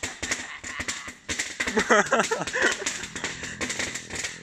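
Firecrackers going off in rapid, irregular crackling pops, with a drawn-out vocal exclamation about two seconds in.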